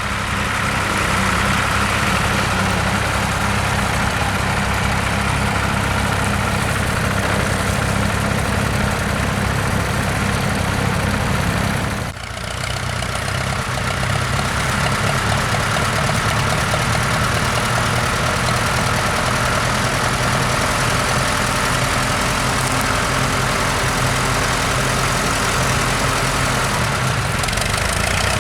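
Tractor engines running steadily at a low engine note. About halfway through, the sound changes abruptly to a different engine note.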